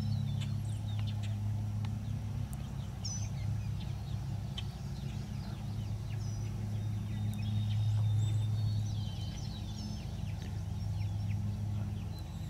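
A steady low mechanical hum under short, high bird chirps that come every second or two.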